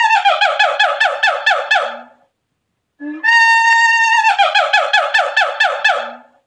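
Monkey call played twice: a held high note that breaks into a quick run of falling yelps, about six a second. The second call starts about three seconds in.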